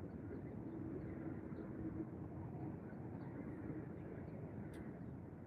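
Steady outdoor background rumble with a faint steady hum that fades out after a few seconds, and a single sharp click near the end.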